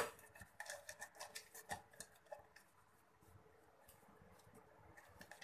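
Faint rustling and light ticks of a paper liner being pressed and smoothed by hand into a greased steel cake tin, mostly in the first half, after a sharp click at the very start.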